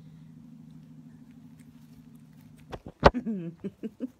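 A Shetland sheepdog puppy bumping into the phone's microphone about three seconds in, giving a few loud knocks and rubbing, followed by a quick run of short vocal sounds. A steady low hum lies underneath.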